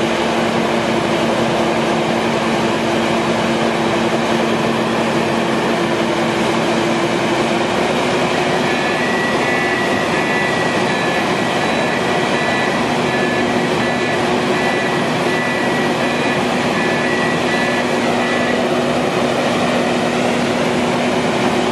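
Sandvik Tamrock Titon 600 DTH drill rig running steadily: a loud, even mechanical noise with a low hum. A faint high whine joins about nine seconds in and drops out a few seconds before the end.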